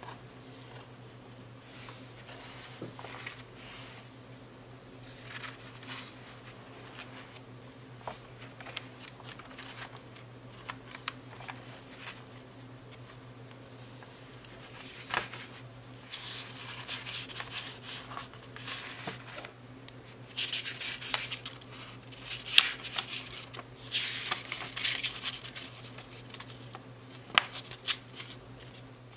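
Paper handling: pages of a Moleskine hardcover notebook and its folded paper booklet being turned and rustled, with scattered small taps and clicks and louder rustling bursts in the second half. A steady low hum runs underneath.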